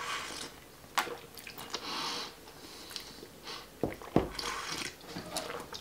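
Two people sipping coffee from mugs: several short slurps, with a few light knocks, the loudest two about four seconds in.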